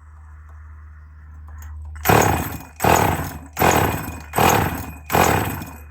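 Husqvarna 444 chainsaw being pull-started: five quick yanks on the recoil starter, about one every 0.8 s, the engine turning over without catching. The saw is flooded and coughing fuel out of the exhaust.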